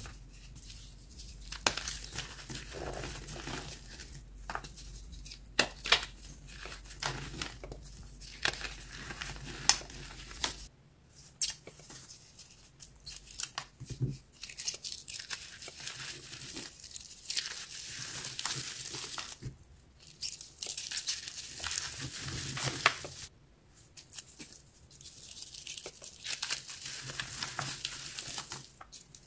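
Hands snapping and crumbling dry, dyed powder blocks: sharp crunchy snaps scattered through a steady gritty crumbling and the hiss of sifting powder, broken by a few short pauses.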